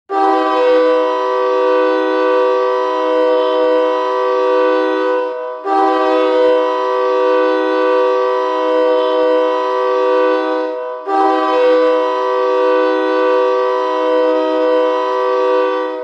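Erie Otters hockey goal horn blowing three long blasts of about five seconds each, a loud steady multi-note chord with brief breaks between blasts.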